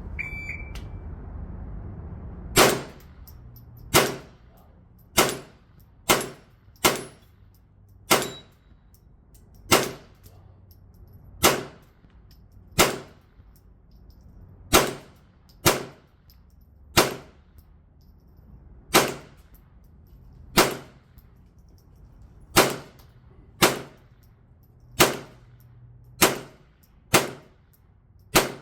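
A shot-timer start beep, then a string of about twenty .22 LR gunshots fired at an uneven pace, roughly one to two seconds apart.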